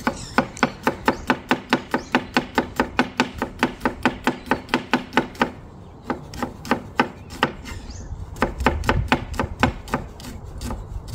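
Kitchen knife chopping onion on a plastic cutting board. Rapid, evenly spaced chops for about five seconds, then slower, scattered cuts.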